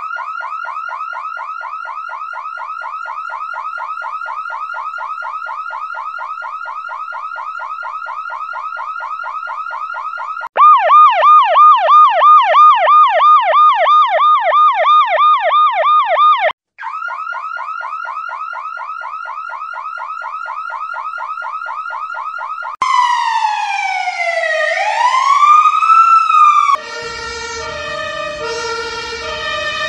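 Electronic emergency-vehicle sirens in a changing sequence: a fast warble, then a louder yelp at about two sweeps a second for several seconds, the fast warble again, then a slow wail falling and rising. Near the end the sound switches to a pattern of stepped tones.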